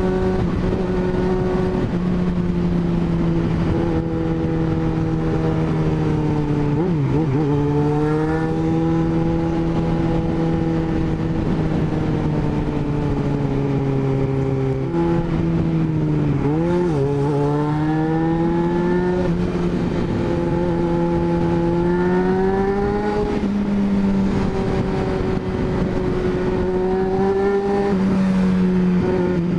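Yamaha XJ6's inline-four engine running while riding, its pitch climbing in stretches as it accelerates and dipping sharply then recovering twice, about seven and sixteen seconds in. Wind rushes over the microphone throughout.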